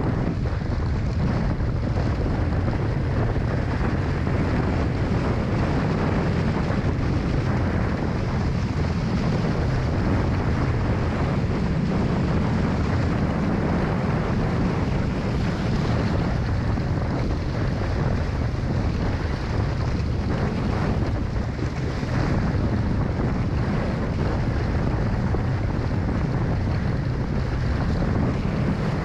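Strong wind buffeting the microphone over water rushing past a Hobie 16 catamaran sailing fast, a steady rumbling noise.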